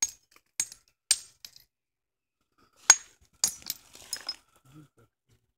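Hard-hammer flint knapping: a hammerstone striking a flint nodule that is being shaped into a hand axe, giving a series of sharp, ringing clinks at uneven spacing, the loudest about three seconds in. Each strike knocks a flake off to widen the working edge.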